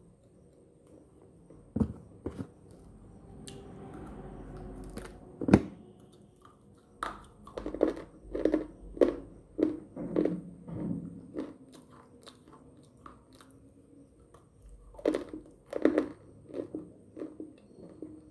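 A person biting and chewing hard, crunchy slate sticks: a few sharp snaps as pieces are bitten off, the loudest about five and a half seconds in, then spells of crunchy chewing with a pause in the middle.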